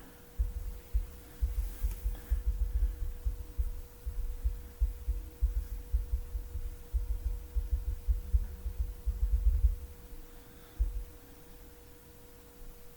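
Irregular low thumps and rumble for about ten seconds, then dying away, over a faint steady hum.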